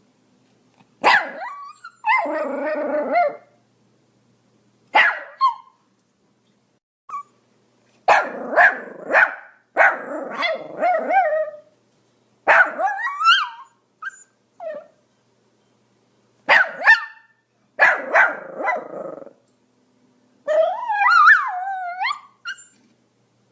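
Pomeranian barking in clusters of short, sharp yaps separated by brief pauses. Near the end comes a longer call that wavers up and down in pitch, like a whine.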